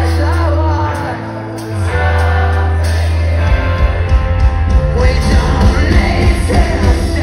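Live rock band with a male lead singer singing into a microphone. A long-held bass note carries the first half, then about three and a half seconds in the drums come in and the band plays louder and more rhythmically.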